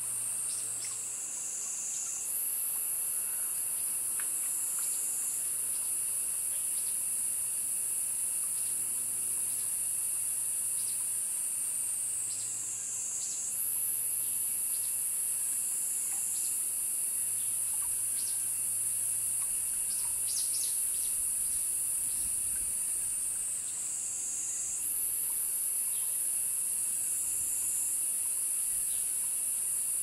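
Cicadas singing: a loud, high, continuous buzz that sinks in pitch over a few seconds and then jumps back up, about every eleven seconds. A fainter steady insect tone runs beneath it.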